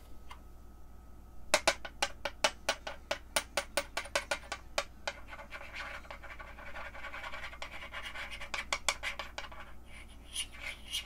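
Scratching and scraping on a tabletop as a quarter is made to creep and skid across it. First comes a quick series of sharp scratchy clicks, about three a second, then a more continuous rasping scrape.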